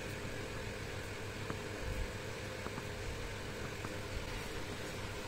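Steady low hum and hiss of room noise, with a few faint taps and scratches from a whiteboard marker writing on a whiteboard card.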